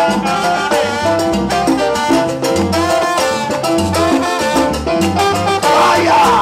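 Live salsa band playing an instrumental passage: a section of slide trombones plays a horn line over conga and percussion, with a repeating bass line underneath.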